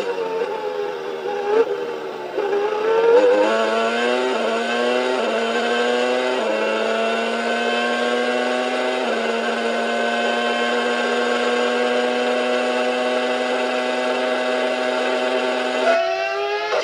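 Onboard sound of a 1994 Williams FW16 Formula One car's Renault V10 at high revs. The note dips early on, climbs in pitch over several seconds as the car accelerates, then holds a steady high note at full speed. It cuts off suddenly about a second before the end.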